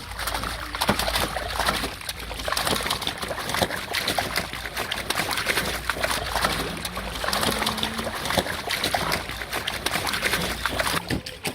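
Water splashing and sloshing without pause, full of many small, sharp splashes.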